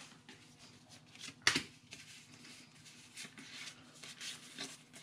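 Faint rustling and sliding of trading cards from a freshly opened booster pack being handled, with one sharp click about a second and a half in.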